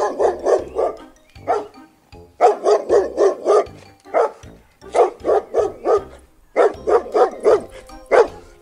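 Dog barking repeatedly, in quick runs of several sharp barks separated by short pauses.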